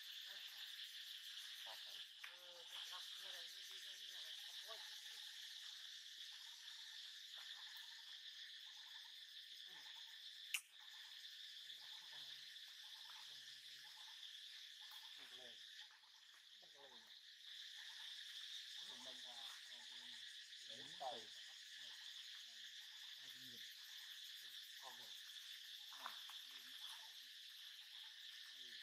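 Faint, steady chorus of forest insects with a high, even drone. Scattered faint short rustles and calls sound lower down, and one sharp click comes about ten seconds in.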